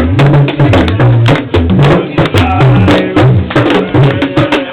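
A group of drums playing a fast, steady rhythm together. Deep drum strokes alternate between two pitches in a repeating pattern, with many sharp, crisp strikes layered on top.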